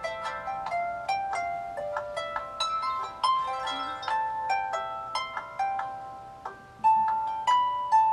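Light music of quick plucked, harp-like notes in a steady flowing melody, each note ringing briefly and fading.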